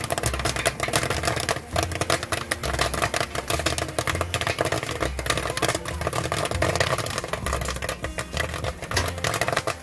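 Popcorn popping in a hanging steel kettle popper on a vendor's cart: a dense, rapid crackle of kernels bursting as the full kettle overflows. A low steady rumble runs underneath.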